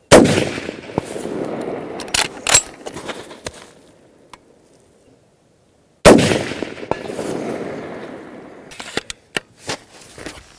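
Two shots from a Riverman Gun Works .308 Modular Breakdown Rifle, about six seconds apart, each followed by a long rolling echo that dies away over two or three seconds. A few sharp metallic clanks fall between and after the shots.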